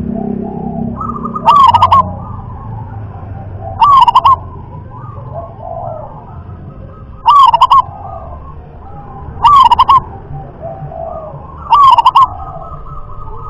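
Zebra dove (perkutut) cooing: five loud phrases about two to three seconds apart, each a quick run of staccato notes, with softer calls in between.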